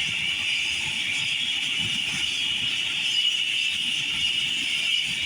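Police helicopter's turbine engine whining steadily at a high pitch, over a low, uneven rumble of rotor and wind.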